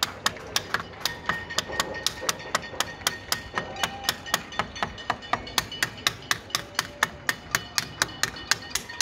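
A steady, even beat of sharp knocks, about four a second, from something hard being struck over and over.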